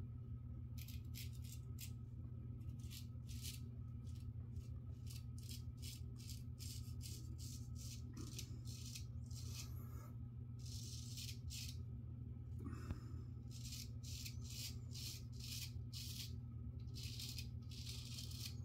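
Vintage Giraffe straight razor scraping through lathered beard stubble: runs of short, high-pitched rasps, one per stroke, with pauses between runs. A steady low hum sits underneath.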